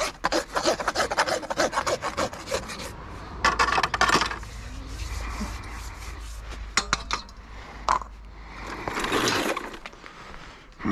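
Farrier's rasp filing a horse's hoof: a quick run of rasping strokes for about the first three seconds, then a few separate strokes and scrapes.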